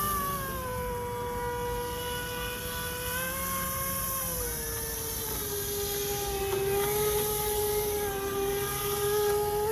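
RC airboat's brushless electric motor driving a three-blade propeller inside a prop ring, a steady whine whose pitch steps down about half a second in, rises a little around three seconds, and drops again about four and a half seconds in as the throttle is changed.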